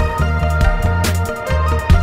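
Background music with a pulsing bass line, held tones above it and a few sharp drum hits.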